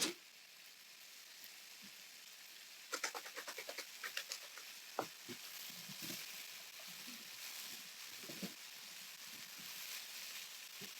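Ground turkey sizzling faintly in a hot oiled skillet, with a quick run of sharp taps and scrapes of a utensil against the pan about three seconds in and a few single knocks later.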